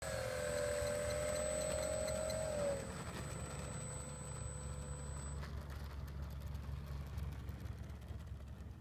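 Radio-controlled F4U Corsair model's motor and propeller whining at a steady pitch. About three seconds in the pitch drops and the whine fades away over the next two seconds.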